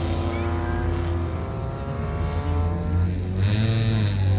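Several air-cooled Volkswagen flat-four race engines running hard on a dirt track, their pitch climbing and dropping as the cars accelerate and shift. About three seconds in one engine grows louder and revs up and back down.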